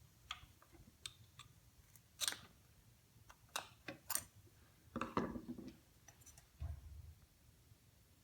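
Small metal parts clicking and scraping as a cap is pried off the spring-tensioning knob on an Atlas 73 drill press head: several sharp clicks, a short scrape about five seconds in, and a dull thump near the end.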